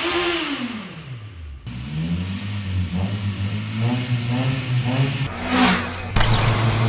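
Car engine revving: its pitch rises and falls over the first second and a half, then the engine runs on with its pitch wavering up and down. A sudden louder rush of noise comes in near the end.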